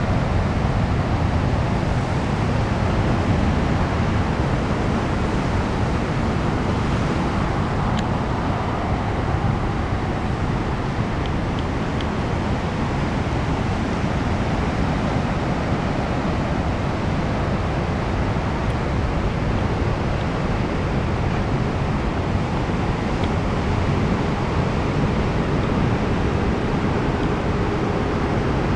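Steady wash of ocean surf as king-tide waves run foaming up over rocks and sand, a constant rushing noise with no single crashes standing out.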